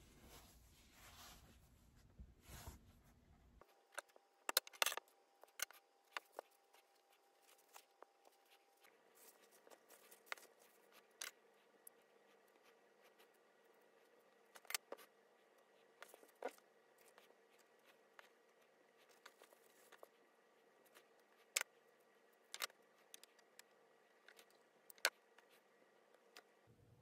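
Small scissors snipping sock fabric, with scattered sharp clicks from handling the scissors and fabric pieces at irregular intervals over a faint steady hum.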